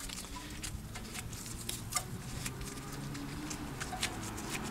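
Light, irregular clicks and taps of gloved hands handling a brake caliper and its loosened caliper bolts, over a faint low steady hum.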